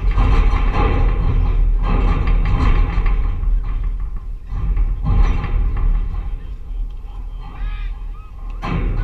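Spectators at a youth baseball game shouting and cheering in several loud bursts, each lasting a second or two.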